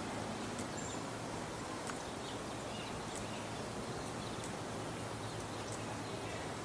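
Steady outdoor background noise with a few faint high bird chirps, and a faint sharp tick repeating about every second and a quarter.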